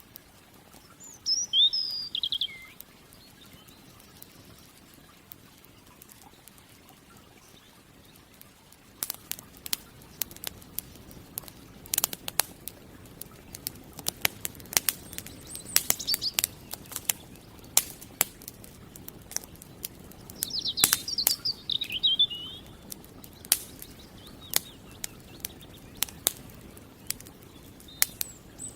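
A campfire crackling with many sharp, irregular pops over a low rushing hiss, starting about a third of the way in. A small songbird chirps in short, quick gliding phrases near the start, again about two thirds of the way through, and just at the end.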